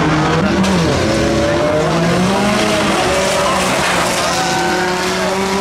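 Engines of several banger-racing vans running hard together, their pitch rising and falling as they race around the oval.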